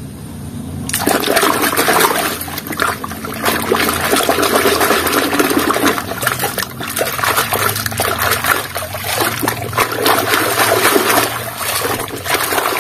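Muddy water sloshing and splashing in a basin as a hand swishes and scrubs a mud-caked plastic toy tow truck through it, starting about a second in and going on with a couple of short lulls.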